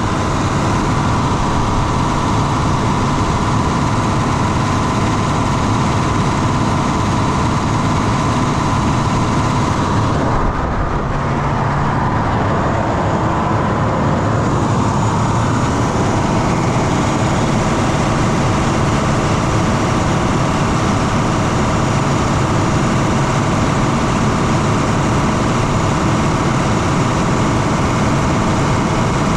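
John Deere 9430T's 13.5-litre PowerTech six-cylinder diesel idling steadily on a test run after its variable-speed fan drive has been rebuilt.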